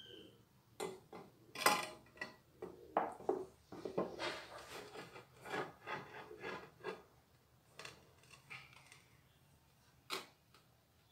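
A porcelain-tile strip scraping and knocking against the porcelain-tile sink as it is fitted and pressed into place: a run of short, irregular scrapes and taps, then one sharp click near the end.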